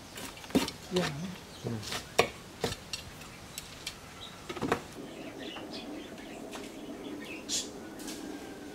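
A small metal hand rake scrapes and knocks through a bonsai's root ball, with loose soil falling away: a string of sharp clicks and scrapes over the first half. About halfway in, a steady low hum takes over.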